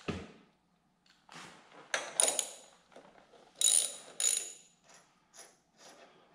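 Socket ratchet with a 5/8 socket being fitted and set on a rocker-arm nut of a small engine's cylinder head: irregular metal clicks and clinks, with two louder ringing clinks near the middle and lighter ratchet ticks toward the end.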